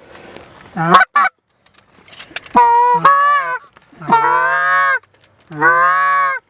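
Goose honks, loud and close: a short rising call near the start, then three long, drawn-out honks of about a second each, with short gaps between them.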